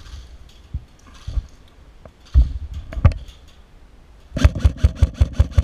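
Airsoft gun firing: two single shots a little past the middle, then a rapid even string of about eight shots in just over a second near the end.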